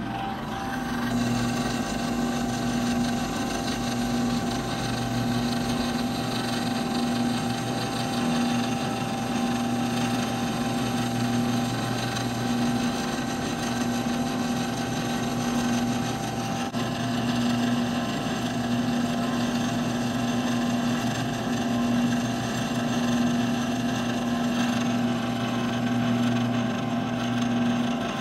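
Milling machine spindle running a quarter-inch end mill through the back face of an aluminium GT22 turbo compressor wheel, cutting its superback down to height. A steady machining hum with cutting noise over it, and a low tone that swells and fades in a slow, regular rhythm.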